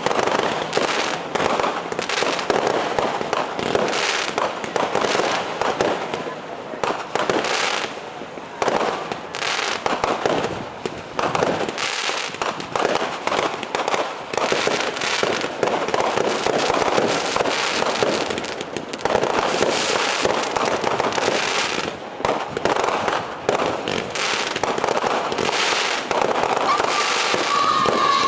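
Aerial fireworks display: shells bursting one after another, with dense bangs and crackles in quick succession. A brief high steady tone rings out near the end.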